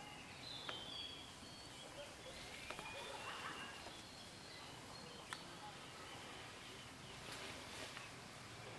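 Faint outdoor forest ambience with a few short, high bird chirps and scattered sharp clicks, like twigs snapping or hooves on leaf litter.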